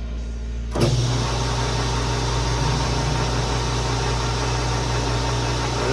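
Metal lathe running: just under a second in, a steady mechanical hum and even hiss start abruptly over a low background drone and carry on unchanged.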